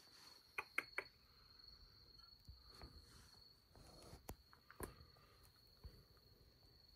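Near silence, with a faint steady high-pitched tone and a few soft clicks, three in quick succession about a second in and two more around the middle.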